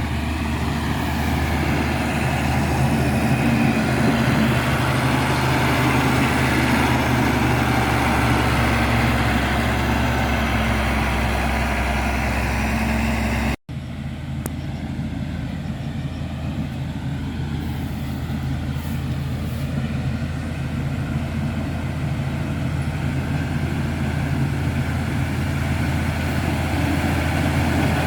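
Caterpillar 140H motor grader's diesel engine running steadily while grading a road. About halfway through the sound cuts out for an instant and resumes duller, with less hiss.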